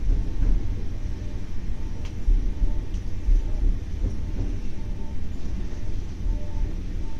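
Train running, heard from inside: a steady low rumble of wheels on rails, with a few faint sharp clicks and a faint thin tone that comes and goes.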